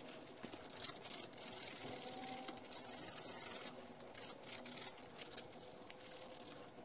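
Sandpaper scratching back and forth over a small metal ring terminal on an outboard stop-switch wire, cleaning the terminal for good contact. It comes in strokes, the longest about halfway through, then quicker short strokes.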